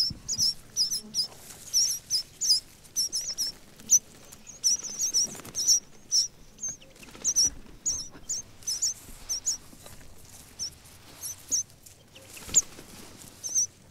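A group of Arabian babblers mobbing a snake: a long run of short, loud, high chirping calls, two or three a second, from several birds at once.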